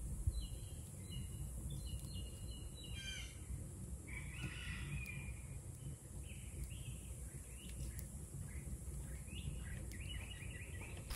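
Several songbirds chirping and calling in short repeated phrases over a steady low outdoor rumble.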